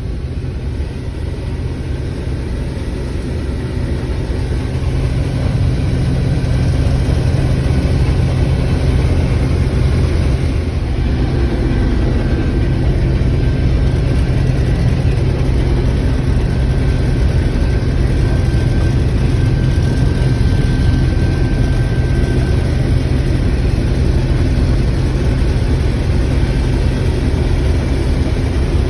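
Combine harvester running while cutting soybeans: a steady low engine hum with threshing noise, growing louder over the first several seconds and then holding steady.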